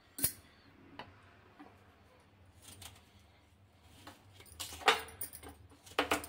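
Scattered light clicks and short scrapes of a small kitchen knife cutting amla over a steel plate, with glass bangles clinking; the loudest scrape comes about five seconds in.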